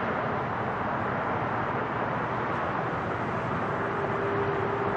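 Four-engined Airbus A380 airliner on low final approach with its gear down, its jet engines making a steady rushing noise overhead; a steady tone joins the noise about three and a half seconds in.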